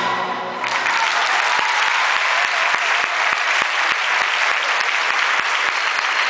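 Theatre audience applauding as the dance music ends: the last notes of the music stop within the first second, then many hands clap steadily.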